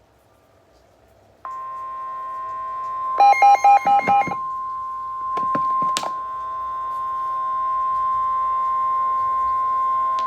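NOAA Weather Radio warning alarm tone: a steady, piercing single tone near 1,050 Hz that starts about a second and a half in and holds on, signalling that a warning message is about to follow. About three seconds in, a burst of rapid pulsed beeps sounds over it for about a second, followed by a few sharp clicks.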